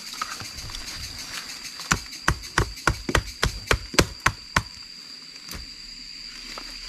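A blade chopping through tree roots in a dig hole: a quick run of about ten sharp chops, roughly three a second, then one more after a short pause. A steady high insect drone runs underneath.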